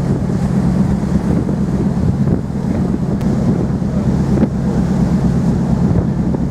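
Wind buffeting the microphone over the steady low drone of a cross-Channel ferry's engines.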